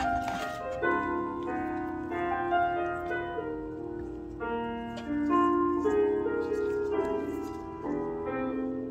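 Background piano music, a steady succession of single notes and chords.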